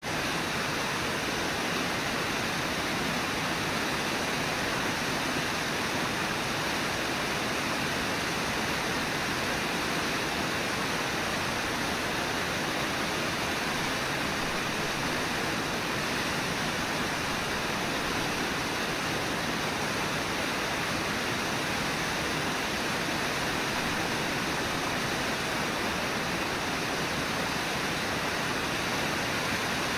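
Brooks River rushing over Brooks Falls and its rapids: a steady, unbroken wash of falling water.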